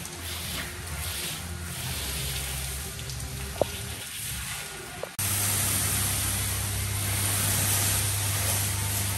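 Pressure washer jet spraying water onto a boat hull: a steady hiss of spray over the hum of the washer's pump motor. It comes in abruptly and louder about five seconds in, after a quieter stretch.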